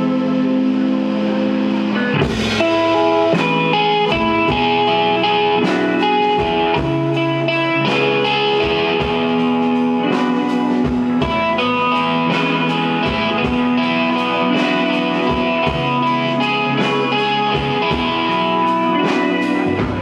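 Live rock band playing an instrumental intro: electric guitar with sustained, effected notes, joined about two seconds in by the drum kit with a cymbal crash, then a steady beat.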